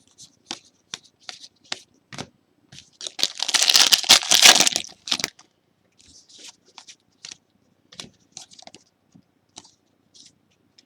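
A trading-card pack wrapper being ripped open, a loud crinkly tear lasting about two seconds midway, amid short sharp flicks of cards being slid one behind another in the hand.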